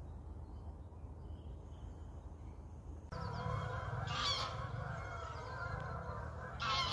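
Geese honking as they fly overhead, starting suddenly about three seconds in, with two louder honks about a second and about three and a half seconds later. Before that, only a low outdoor rumble.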